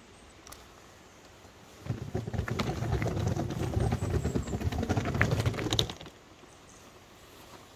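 Hard-shell suitcase wheels rattling over cobblestones, a dense clatter that starts about two seconds in and stops suddenly about four seconds later.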